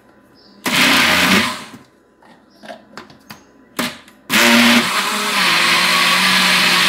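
Countertop blender mixing a thick cake batter: a short pulse of about a second, a few light clicks, then about four seconds in the motor starts again and runs steadily.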